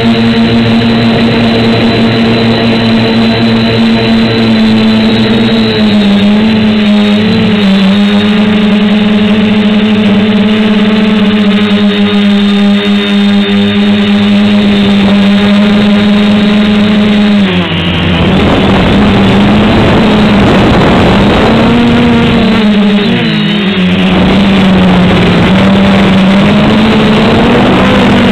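SK450 quadcopter's four brushless motors and propellers droning loudly, a steady pitched hum that drifts slightly with throttle. About two-thirds of the way through it turns rougher and noisier with a wavering pitch as the craft manoeuvres.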